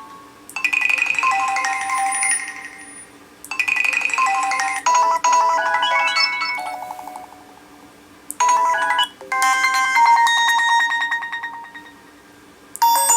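HTC Desire 610 ringtone previews: a run of short melodic chime tunes played one after another, several cut off abruptly as the next one starts.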